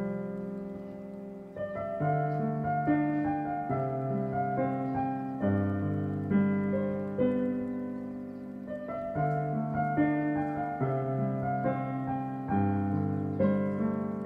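Solo piano playing background music: notes and chords struck about once a second and left to ring and fade.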